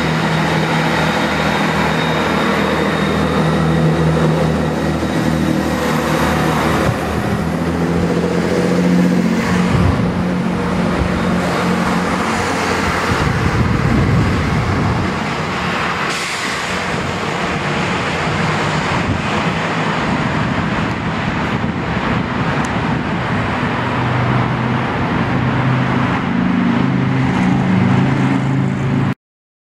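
GWR Turbo diesel multiple unit pulling out and running away over pointwork, its underfloor diesel engines droning steadily under power while the wheels knock over the rail joints and crossings. A thin high whine sounds in the first few seconds, and the sound cuts off suddenly just before the end.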